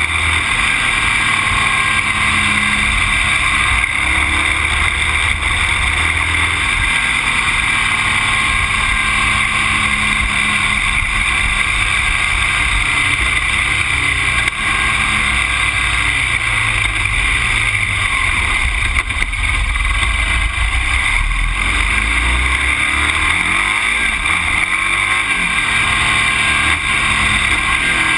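Motor vehicle engine running on the move, its pitch rising and falling as the speed changes, over a steady loud rush of wind and road noise.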